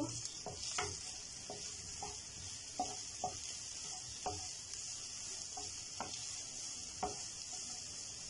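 Chicken pieces, sliced onion and tomato sizzling in oil in a frying pan while a wooden spatula stirs them, with irregular light scrapes and taps of the spatula against the pan over a steady sizzle.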